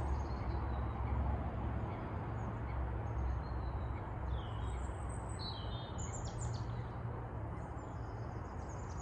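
Steady low outdoor background rumble, with a few short, high bird chirps about four to six seconds in.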